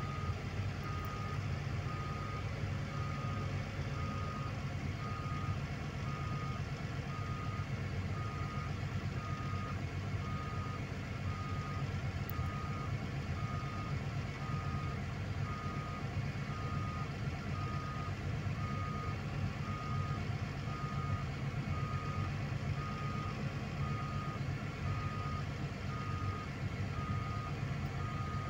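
Heavy diesel earthmoving machinery running steadily, with a backup alarm beeping evenly at about one beep a second throughout.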